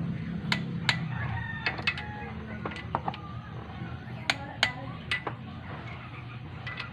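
Ratchet torque wrench clicking in short bursts, often two clicks close together, as cylinder head bolts are tightened to 30 foot-pounds.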